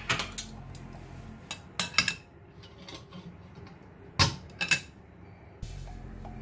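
Wire plate-lifter tongs clinking against a glass steaming dish and a stainless steel wok as the dish is gripped and lifted out of the steamer: a series of sharp clinks, the loudest about four seconds in.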